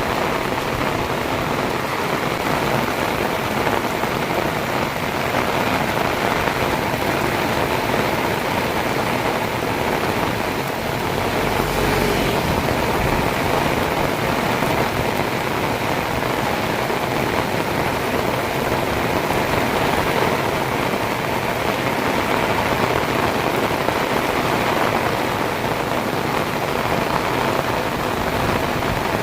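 Heavy rain pouring down steadily: a dense, even hiss of rain striking surfaces.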